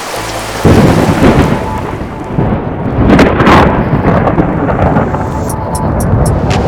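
Thunderstorm sound effect: thunder breaks suddenly about half a second in and rumbles on over steady rain, with a second sharp crack of thunder around three seconds in.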